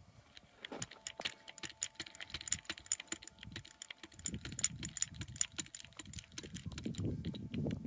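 Hand-pumped hydraulic crimp tool being worked to crimp a copper lug onto a battery cable: a dense, irregular run of small sharp clicks as the handle is pumped and the die closes on the lug.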